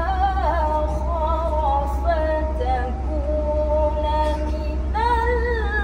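A woman reciting the Quran in a melodic, ornamented tilawah style into a handheld microphone, her voice wavering through melismas. She holds a long steady note about three seconds in, then rises into a higher phrase near the end, over a steady low hum.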